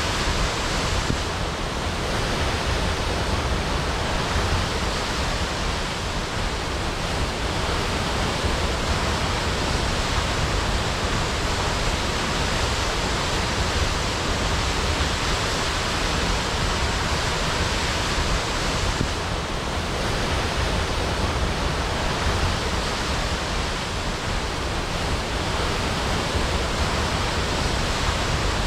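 Waterfall crashing: a steady, even roar of falling water.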